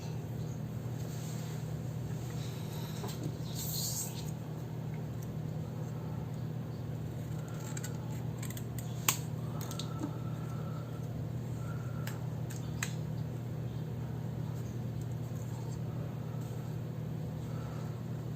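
Quiet desk-side journaling sounds over a steady low hum: a few light clicks and taps of small objects being handled, the sharpest about nine seconds in, and a brief soft hiss a few seconds in.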